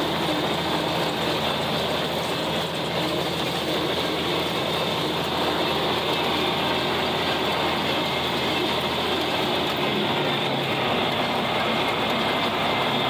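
John Deere 4020 tractor engine running steadily under load, driving and pulling a rotary cutter (brush hog) as it mows.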